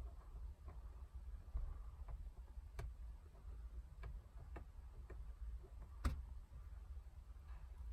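Scattered light clicks and taps from hands handling decals on a car's vinyl console lid, the sharpest about three seconds and six seconds in, over a faint low rumble.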